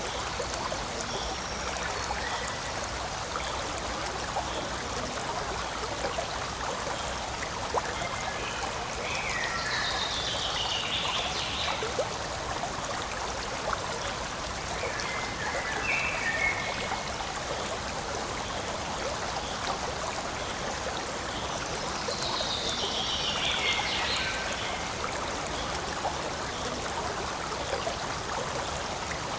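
Forest stream flowing steadily over stones, a constant babbling rush. A bird sings a short falling phrase twice, about ten seconds in and again near the end, with a brief call in between.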